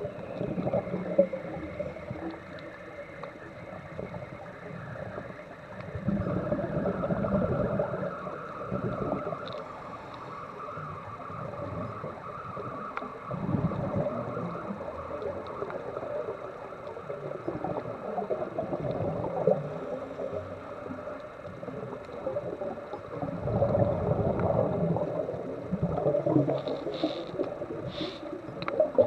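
Underwater sound of a scuba diver breathing through a regulator: exhaled bubbles gurgle in surges every several seconds over a steady hiss. A few sharp clicks come near the end.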